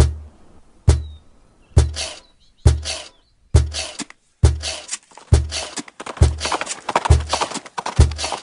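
Music: a deep bass drum beating steadily, a little under once a second. A busier, rustling percussive layer builds over it from about two seconds in and thickens toward the end.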